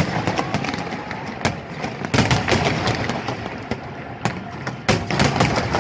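Aerial fireworks display: a run of sharp bangs and crackling shell bursts, bunched about two seconds in and again near the end, over a steady noisy background.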